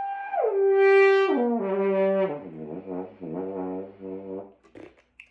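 Brass instrument warm-up: a held high note drops an octave, then steps down through lower notes to a few short repeated low notes, stopping a little before the end. A couple of faint clicks follow.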